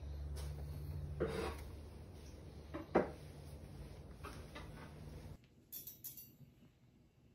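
Handling noise from a cardboard box of charcoal briquettes being held and turned in the hand: a few scattered knocks and rubs, the sharpest about three seconds in, over a low steady hum. About five seconds in the hum stops and only a couple of light clicks follow.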